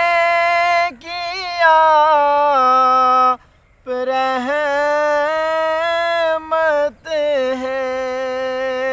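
A man's unaccompanied voice recites a naat, drawing each syllable out into long held notes with wavering ornaments. There are three long phrases, with a brief break for breath before the second and third and a short silence about three and a half seconds in.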